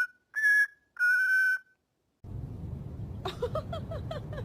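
Parrot whistling two clear held notes, the second longer and steady. After a short silence a new clip begins with background hiss and a quick run of short chirps.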